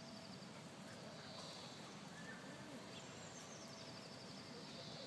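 Faint outdoor ambience with small birds singing high, twittering trills twice: once at the start and again over the second half. No dog sounds stand out.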